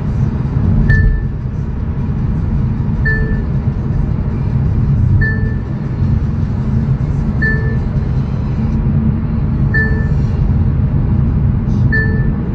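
Hyundai Veloster N's turbocharged four-cylinder engine and tyres giving a steady low rumble inside the cabin at highway speed. A short, high beep repeats about every two seconds over it.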